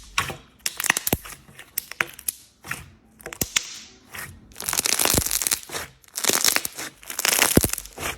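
Slime being worked by hand, making a run of sharp pops and clicks broken by longer crackling, crunching stretches about five seconds in and again near the end.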